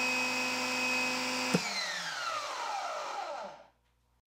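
Electric pressure washer motor and pump running with a steady whine. About a second and a half in, the motor cuts off with a click as the hose reaches pressure. It then winds down in falling pitch and goes quiet.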